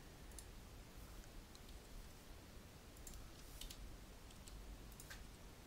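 Faint, scattered clicks of a computer mouse and keyboard being worked, about half a dozen spread unevenly, over a low steady hum.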